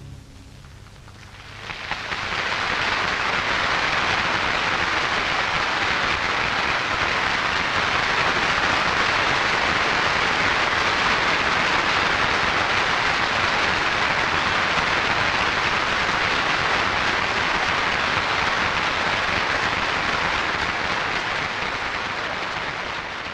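Audience applauding: dense, even clapping that swells up about a second and a half in and then holds steady, easing slightly near the end.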